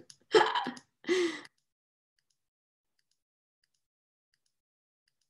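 Two short breathy vocal sounds from a person in the first second and a half, then the sound drops away to near silence with a few faint scattered clicks.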